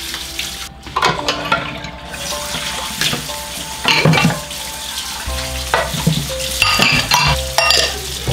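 Dishes being hand-washed at a kitchen sink: running water with knocks and clinks of dishes and pots being handled, over background music.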